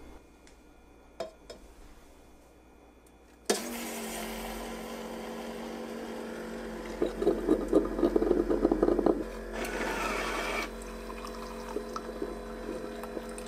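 Ninja Hot and Cold Brewed System coffee maker starts up suddenly about three and a half seconds in with a steady hum, brewing a specialty coffee while its built-in milk frother whisks milk in a steel pitcher. A louder, crackling stretch comes about halfway through, then the steady hum carries on.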